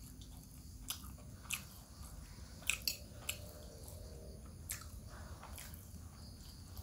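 A person chewing a mouthful of bamboo-shoot vegetable dish, with a metal spoon clicking against the glass bowl several times; the sharpest clicks come a little under three seconds in.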